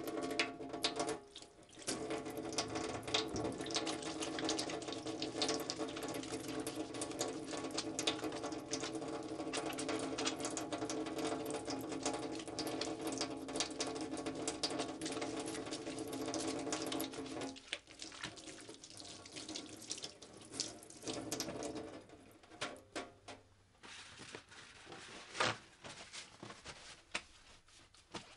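Water running from a kitchen mixer tap into a stainless steel sink as hands are washed and lathered under it; the stream stops about two thirds of the way through. Then hands are rubbed dry with kitchen paper, with soft rustles and small taps.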